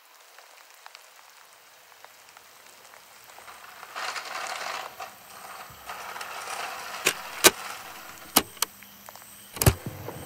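Cassette boombox mechanism being worked: faint hiss, then a rustling handling noise from about four seconds in, followed by five sharp mechanical clicks of its keys and tape mechanism in the last few seconds.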